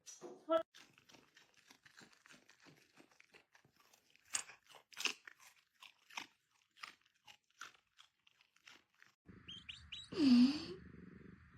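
Crunchy chewing: many quick, irregular crunches, as of an animal eating something hard. After about nine seconds it gives way to a steady hiss and one loud, short cry that dips and rises in pitch.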